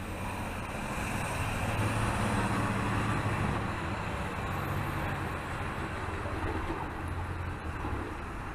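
City street traffic: a steady rumble of vehicle engines and road noise, a little louder about two to three seconds in.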